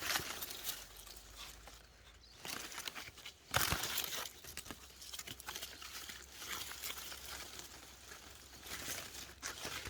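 Custard apple tree leaves and fruit being handled: irregular rustling and crinkling as fruit is tugged off by hand, with one sharper knock about three and a half seconds in.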